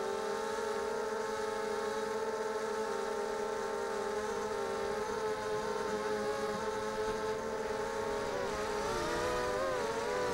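ZMR250 quadcopter's brushless motors (RCTimer 2300kv, 5030 props) buzzing steadily in flight, heard from on board. Near the end the pitch wobbles up and down with throttle changes.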